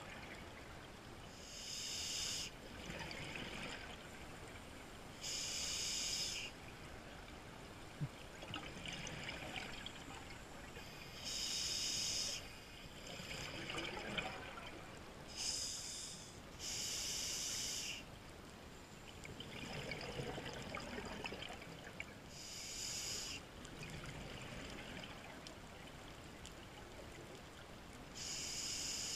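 Scuba diver breathing through a regulator, heard underwater: slow breaths, each exhalation a loud burst of bubbles about every five or six seconds, with softer inhalations between.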